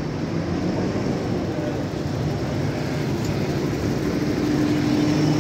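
Double-decker bus engine running as the bus drives slowly past close by, a steady low engine hum that grows a little louder toward the end.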